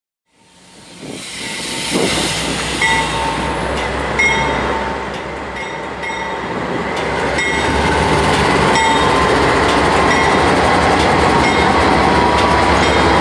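Canadian Pacific diesel locomotive rolling past, fading in over the first second or two: a steady low engine rumble and wheels running on the rails, with brief high-pitched squeals every second or so.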